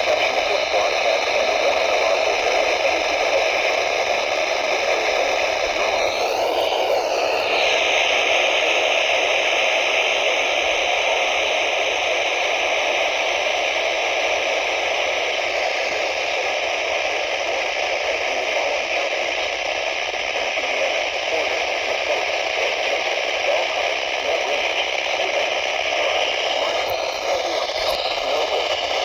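Steady static hiss from a NOAA weather radio receiver with no clear signal coming through. Brief wavering sweeps in pitch come about six seconds in and again near the end.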